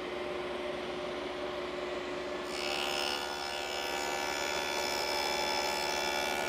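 Power saw fitted with a dado blade running steadily, then cutting a dado into pre-finished plywood drawer stock from about two and a half seconds in, when the sound turns louder and harsher.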